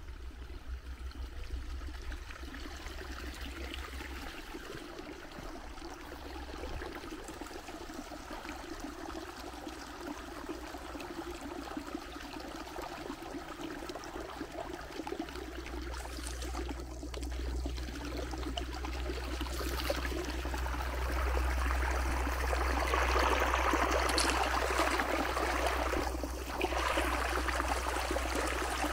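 Steady rushing of running water, growing louder about two-thirds of the way through, over a low steady rumble.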